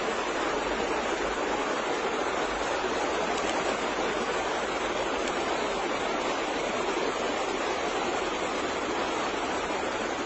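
A steady, even rushing noise, like running water or hiss, with no distinct sounds standing out of it.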